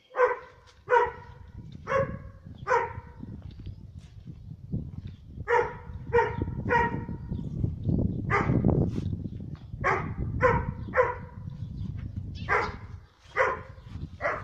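A dog barking repeatedly, about a dozen barks in groups of three or four, over a steady low rumble.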